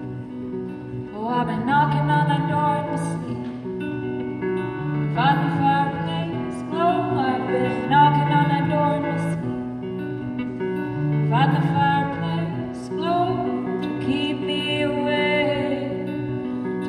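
A woman singing live with her own acoustic guitar accompaniment, played over a PA. The guitar plays alone briefly, then sung phrases come in about a second in, again around five seconds and around eleven seconds, with short guitar-only gaps between them.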